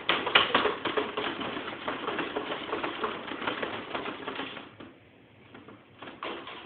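A dog whimpering and yipping in a quick run of short sounds that fades out about four and a half seconds in, with a few more short sounds near the end.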